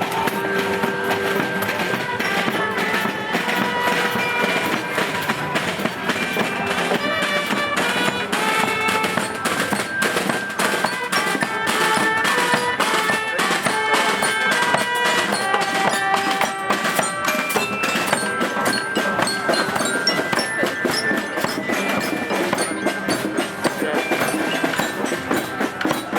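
Music with bell-like mallet notes over a busy clicking beat, without singing.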